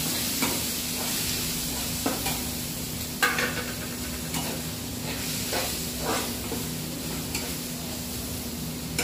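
Onion, tomato and soya chunks sizzling in hot oil in a steel kadhai, with a steady frying hiss. A metal spatula scrapes the pan every second or so as the masala is stirred, the loudest scrape about three seconds in.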